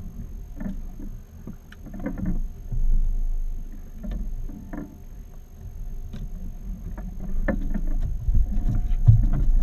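Low wind rumble on the microphone aboard a small fishing boat, with scattered light knocks and clicks of tackle being handled on deck; the rumble grows louder over the last couple of seconds.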